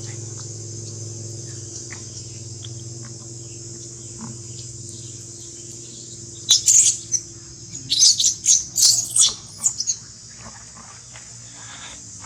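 A steady high-pitched insect drone, broken about halfway through by a brief burst of short, shrill squeaking calls, then by a longer run of them about two seconds later.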